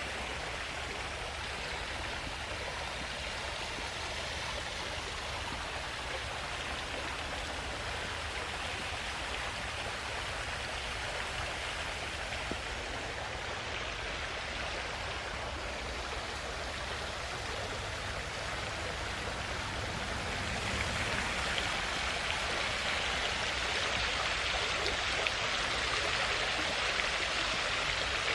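Steady rush of falling water from an ornamental waterfall feeding a pool, growing a little louder about two-thirds of the way through.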